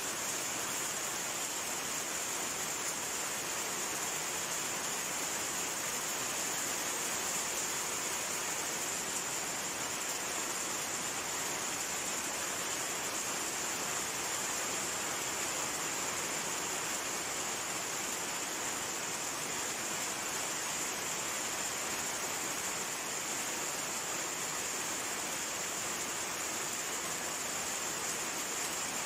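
Steady rain falling: an even hiss that holds at one level without breaks.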